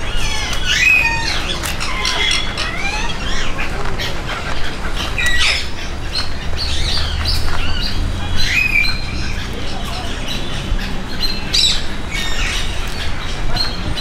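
Parrots squawking, with many short harsh calls and rising and falling whistles overlapping one another.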